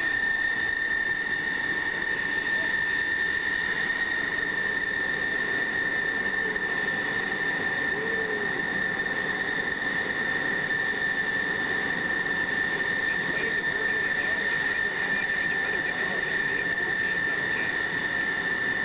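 Grumman F-14 Tomcat's jet engines whining steadily at low power: one constant high-pitched whine over a rushing hiss, the sound of a jet landed and taxiing.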